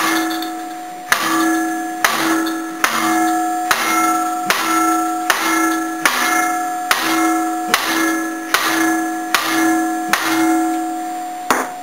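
Hammer blows on a long steel bar set on a very tight crankshaft pulley bolt, about fourteen strikes at a steady pace of roughly one every 0.8 s. Each blow leaves the bar ringing like a bell until the next strike. The hammering is meant to shock loose the bolt after an air impact wrench failed to move it.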